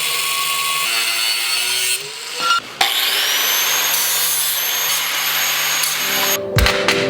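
Power tool cutting through steel plate to trim it to size: two stretches of steady cutting noise over a motor tone, with a short break about two seconds in. Music comes in near the end.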